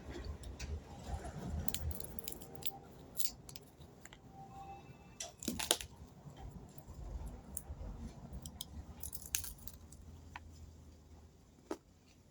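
A person eating red rice: chewing, with scattered sharp clicks and small knocks.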